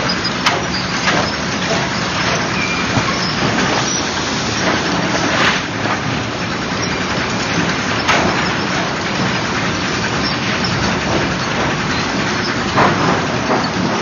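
Automatic sawmill lumber stacker with a stick-placing system running: steady machinery noise, broken about four times by sharp wooden knocks as boards and stacking sticks drop onto the pile.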